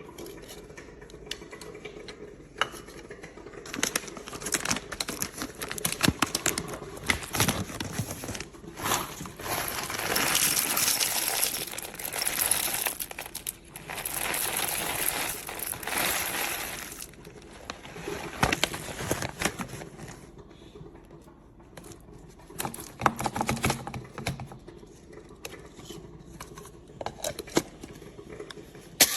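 Irregular handling noises: crinkling and rustling with scattered clicks and rattles, densest from about ten to seventeen seconds in.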